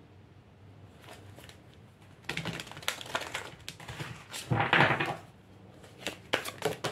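A deck of oracle cards being shuffled by hand: a run of quick papery clicks and flicks from about two seconds in, loudest near the fifth second, then a few separate sharp clicks near the end as the cards are handled.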